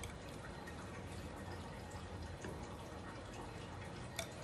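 Faint trickle and drip of sambal sauce being poured from a bowl over a fish on a plate, with one sharp light click, like a spoon against the bowl, a little past four seconds in.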